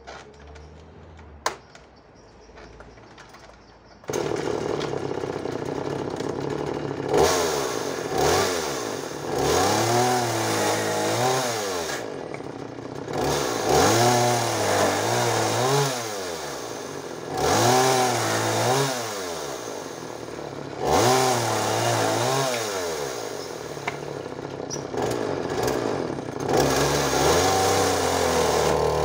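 Petrol chainsaw starting suddenly about four seconds in and running, then revved and cutting through small branches over and over. Its pitch climbs and falls back roughly every three to four seconds between a steady idle.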